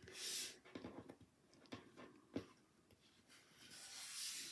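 Faint handling noises of cardstock on a tabletop: short papery swishes at the start and near the end, with a few light taps in between, the sharpest about two and a half seconds in.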